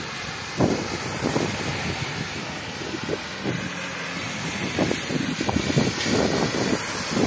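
Traffic driving past on a rain-soaked street, tyres on wet tarmac making a steady hiss, with gusts of wind buffeting the microphone.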